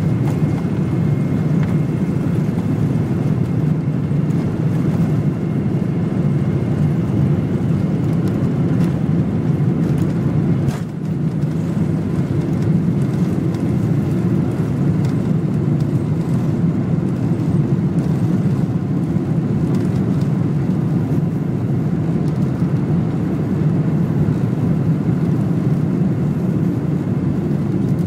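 Airliner's jet engines at takeoff thrust heard from inside the cabin: a loud, steady low roar through the takeoff run and initial climb, with one brief dip about eleven seconds in.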